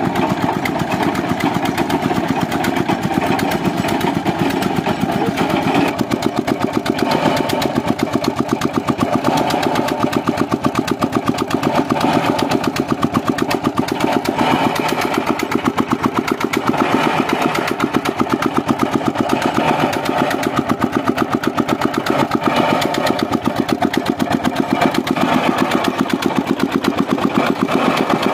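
Small single-cylinder diesel engine running steadily with a rapid, even beat, driving the winch of a tubewell boring rig.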